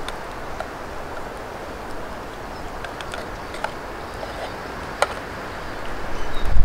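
Wind in a winter forest: a steady hiss broken by a few small snaps and clicks. Near the end, wind starts buffeting the microphone with a rising low rumble.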